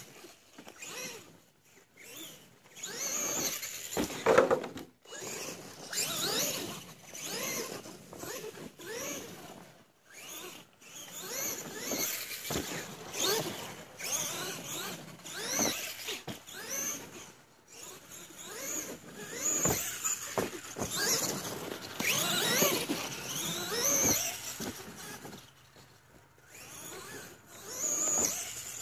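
Electric RC monster truck's motor and drivetrain whining, the pitch rising and falling again and again as the throttle is worked, with tyres scrabbling on loose dirt.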